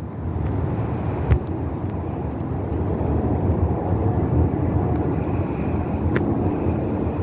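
Airbus A321 jet airliner passing by: a steady, low engine rumble that grows slightly louder. Two brief sharp clicks are also heard, about a second in and near the end.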